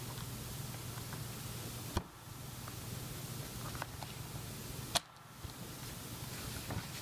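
Laptop-style RAM module being handled and seated in a 2012 Mac Mini's memory slot: small plastic and metal ticks, then two sharp clicks about three seconds apart, the second the louder, as the module snaps into its retaining clips.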